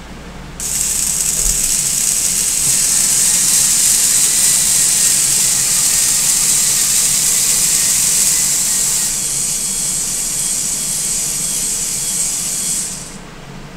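VEX robot arm's electric motors and gear trains whirring steadily as several joints drive together to a new position. Part of the sound drops out about nine seconds in as some joints finish, and it all stops about a second before the end.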